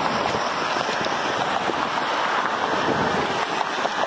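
Steady rushing jet noise from an Embraer E175 regional jet's two underwing turbofan engines as it descends on final approach to land.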